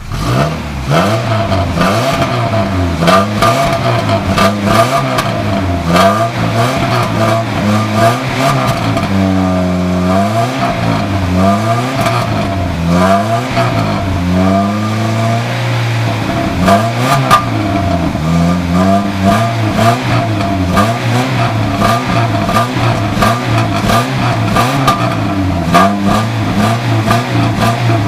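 A 2000 Chevrolet Cavalier's 2.2-litre four-cylinder engine is held at raised revs and revved up and down repeatedly, speeding up sharply at the start. It is burning off a Seafoam engine treatment after the soak.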